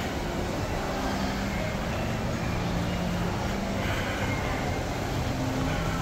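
Steady background noise of an indoor shopping mall, an even hum with faint indistinct sounds in it.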